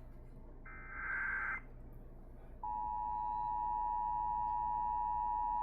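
Emergency Alert System alert opening: a SAME digital header data burst lasting about a second, then, after a short gap, the steady two-tone EAS attention signal starting about two and a half seconds in and holding.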